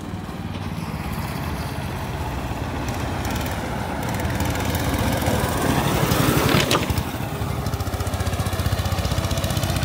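Small go-kart engines running on the track, a steady buzzing hum. It swells to its loudest about six seconds in, then drops off suddenly, and the steady running carries on.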